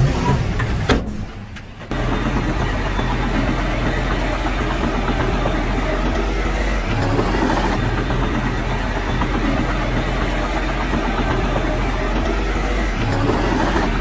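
Heavy diesel earthmoving machinery running steadily with a low, even engine hum. A sharp click about a second in is followed by a brief quieter stretch, and the steady running comes back suddenly about two seconds in.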